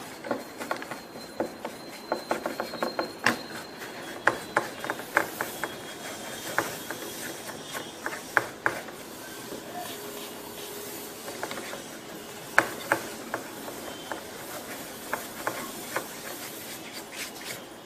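Irregular small clicks and taps with some rubbing, from hands handling and cleaning laptop parts, some of them in quick clusters.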